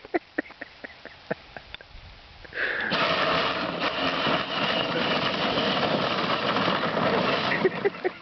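Power Wheels Jeep's electric drive motors and gearboxes, run on 24 volts, whirring steadily for about five seconds from a little past two seconds in. Before and after, there are scattered sharp clicks like footsteps.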